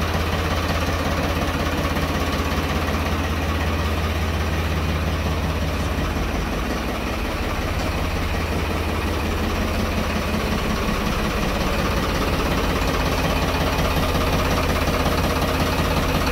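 Farmtrac tractor's diesel engine idling steadily.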